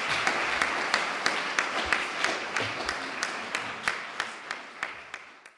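Lecture audience applauding: a dense patter of hand claps with some sharper single claps standing out, gradually fading out.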